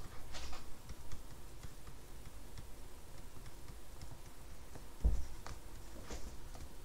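Faint ticks and light clicks of a stylus writing on a pen tablet, with a soft knock about five seconds in.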